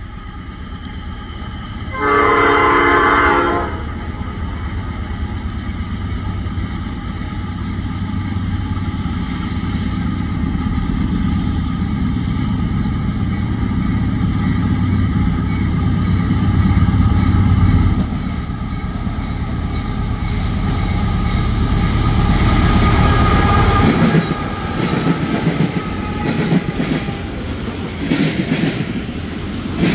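Norfolk Southern freight locomotive sounds its horn in one blast of about a second and a half, then its diesel engine drones louder as it comes by. Over the last several seconds the freight cars click and clatter over the rail joints as they roll past.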